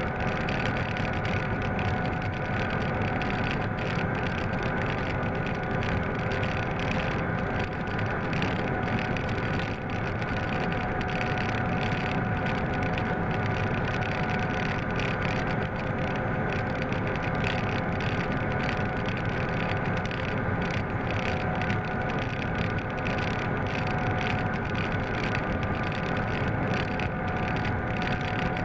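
Class 750 'brejlovec' diesel-electric locomotive running steadily under load as heard in its cab, with a steady whine held on several pitches over the noise of the train rolling.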